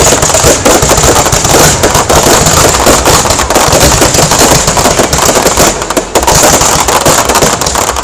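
Aerial fireworks display: a dense, continuous run of rapid bangs and crackle as shells launch and burst overhead, easing briefly about three-quarters of the way through.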